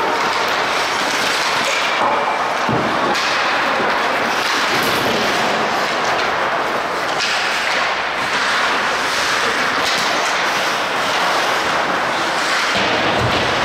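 Ice hockey game play: a steady scraping hiss of skates on the ice that swells and fades, with a couple of dull thuds, one about three seconds in and one near the end.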